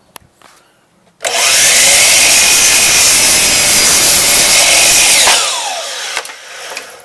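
Power miter saw starting about a second in and cutting through wooden door casing at a 45-degree angle, very loud for about four seconds; then the blade is released and the motor winds down with a falling whine.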